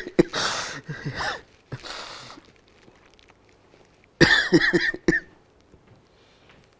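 A man crying: broken sobs and coughing breaths in two bouts, one at the start and another about four seconds in, with quiet between.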